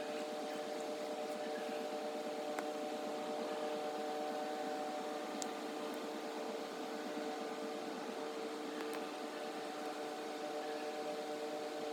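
A steady hum holding several even pitches over a soft hiss, unchanging throughout, with a few faint clicks.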